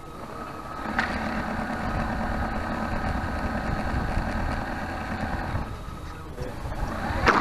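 A model boat's motor starts with a click about a second in, runs steadily with a thin whine, and fades out over the next few seconds. A short, sudden louder noise follows near the end.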